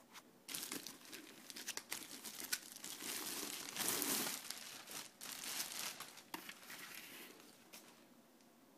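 Clear plastic bag crinkling and crackling as a helmet is unwrapped from it. The crinkling is loudest about four seconds in and dies away near the end.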